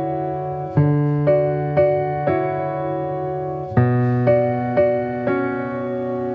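Background music: an electric piano playing a gentle melody of evenly spaced notes over sustained bass chords, changing chord about four seconds in.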